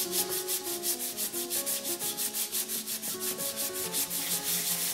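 Sandpaper rubbed rapidly back and forth by hand along a wooden snooker cue shaft, at about five even strokes a second: sanding the shaft down to reduce its diameter.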